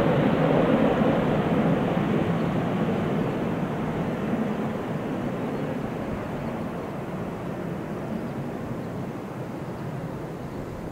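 Jet noise of an E-3A Sentry's four Pratt & Whitney TF33 turbofan engines as the aircraft climbs away, a steady rushing sound that fades gradually as it recedes and loses its higher sound.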